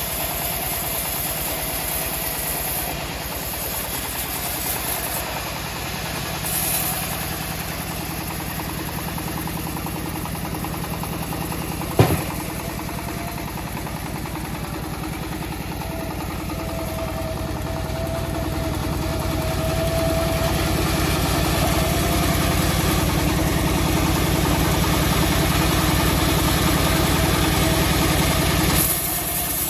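Engine-driven homemade bandsaw mill running while sawing a teak log. It runs steadily, with one sharp knock about twelve seconds in, and grows louder over the second half.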